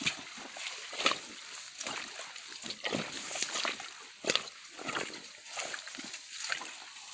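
Footsteps crunching on dry leaves and brushing through tall grass along a dirt path, roughly one step a second.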